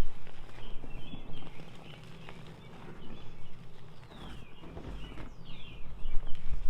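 Blocks of Ader gym chalk mixed with holi powder being crushed, crunching and crumbling in irregular clusters of crackles, with a couple of short falling squeaks past the middle.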